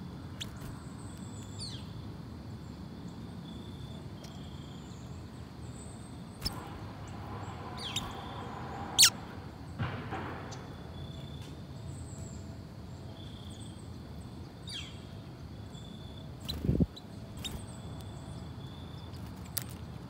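Brown-headed nuthatches giving short, high, squeaky call notes, repeated again and again over a steady outdoor hiss. A louder downward-sweeping chirp comes about nine seconds in, with a few sharp clicks and a low thud near the end.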